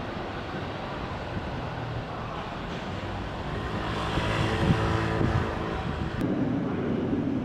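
Electric train running at the station platform, a steady rumble that swells about four to five seconds in, with a motor hum.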